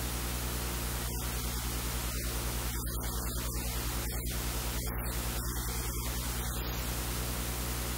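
Steady electrical mains hum with a constant hiss of static, and no other clear sound.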